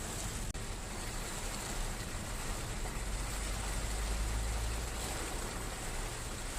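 Steady rain falling as an even hiss, with a low rumble that swells about halfway through and then eases off.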